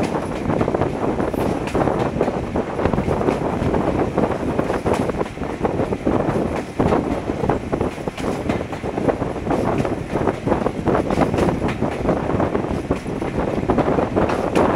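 BR Class 26 diesel locomotive D5343 (26043), with its Sulzer six-cylinder engine, running along the line, heard from its cab window. Steady engine and running noise, with wind buffeting the microphone.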